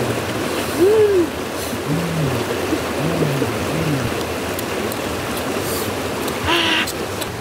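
Steady rush of a stream. Over it come short, closed-mouth "mmm" hums from people chewing food, low arching tones about once a second, and a brief sharper sound near the end.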